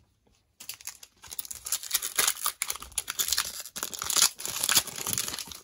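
A trading-card cello pack's cellophane wrapper being torn open and crinkled by hand: a dense crackle that starts about half a second in and is loudest near the end.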